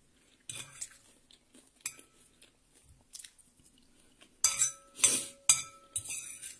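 Metal spoon and knife clinking and scraping on a plate while scraping up the last of the rice. There are a few light taps at first, then a busier run of scrapes and clinks from about four and a half seconds in, with a brief ring from the plate.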